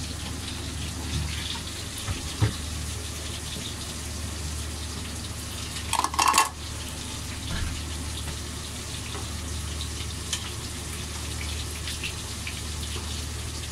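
Steady hiss of schnitzel frying in hot oil in a pan, over a low steady hum. There are a few small clicks about two seconds in and a louder clink of kitchenware about six seconds in.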